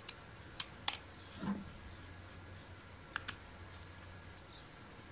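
Faint, scattered clicks of a Phillips screwdriver working the terminal screws of a plastic Janus coupler: two sharp clicks within the first second and a quick pair of clicks about three seconds in.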